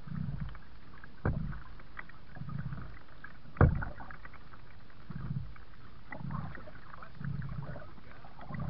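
Kayak paddle strokes pulling through the water, about one a second, with light splashing and dripping. Two sharp knocks come about one and three and a half seconds in, the second louder.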